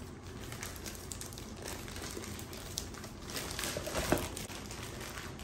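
Thin plastic shrink-wrap bag rustling and crinkling as a whole raw chicken is worked down into it, with a louder handling sound about four seconds in.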